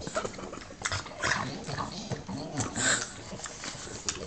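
French bulldog licking and smacking peanut butter in its mouth: irregular wet mouth clicks mixed with short noisy breaths and low grunts, the loudest breaths about a second in and near three seconds in.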